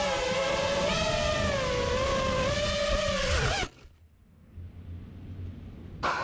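FPV quadcopter's brushless motors whining, the pitch wavering up and down with the throttle, then cutting off abruptly a little over halfway through as the drone comes down hard in grass. A faint low rumble is left after the motors stop.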